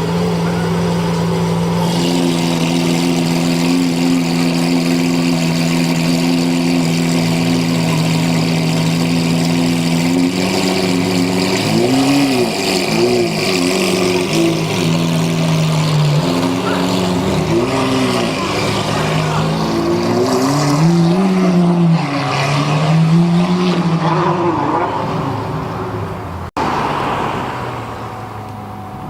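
Lamborghini engine running at a steady high idle, then revved in a series of quick throttle blips, its note rising and falling several times. Near the end the sound cuts abruptly to a quieter engine sound.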